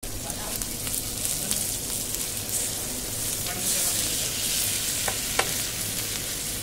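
Kalari cheese frying in fat on a large flat iron griddle, with a steady sizzle. A metal spatula scrapes the griddle throughout, with two sharp ringing strokes about five seconds in.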